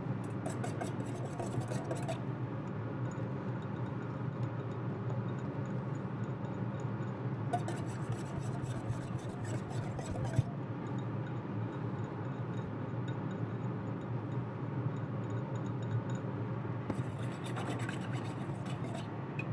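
A utensil scraping and stirring quickly in a stainless steel double-boiler bowl as egg yolks, lemon juice and water are worked into a hollandaise base. It comes in three spells of rapid scratchy strokes: near the start, around the middle and near the end. A steady low hum runs underneath.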